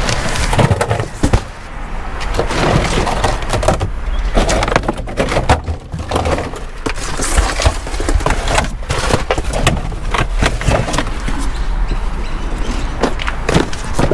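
Cardboard boxes being handled and tossed: a dense run of scrapes, knocks and thuds of cardboard, over a steady low rumble.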